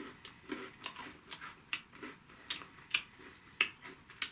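Close-up chewing of a bite of butter shortbread cookie: a string of sharp crunches and wet mouth clicks, about two a second.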